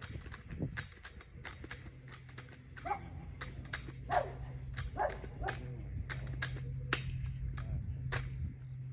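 A dog yipping and whining a few times in short falling calls, among many sharp clicks and taps, over a steady low hum.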